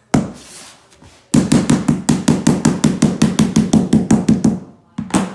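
A luxury vinyl floor plank being knocked to push it in and lock its edge into place: one knock, then a fast even run of about six knocks a second for some three seconds, then two more knocks near the end.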